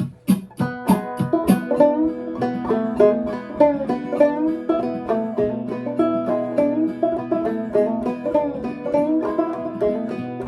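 Banjo played clawhammer style: a Gold Tone converted to a half-fretless (flush-fret) fingerboard, with a goat-skin head and Nylgut strings. A quick run of plucked and brushed notes, some sliding in pitch, over a steady ringing drone note. The first second and a half holds several sharp strikes.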